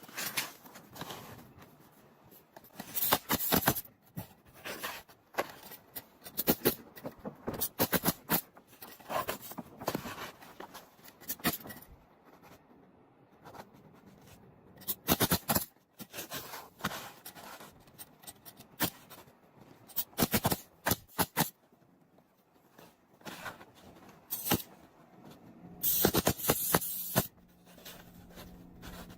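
Asphalt shingles being handled and laid on a roof: scattered sharp clacks and knocks with stretches of scraping, and a longer scraping stretch near the end.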